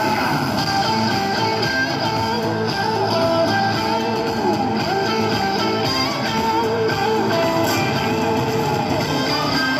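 Music playing continuously at an even level, with plucked string instruments prominent.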